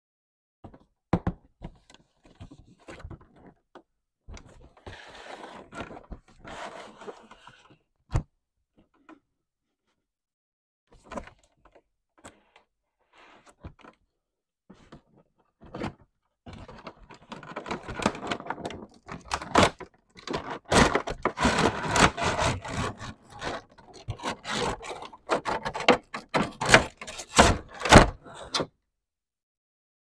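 A cardboard toy box being handled and opened by hand: scattered taps and thunks at first, then from about halfway a busy stretch of scraping, rustling and sharp knocks as the lid comes off and the plastic packaging tray is handled.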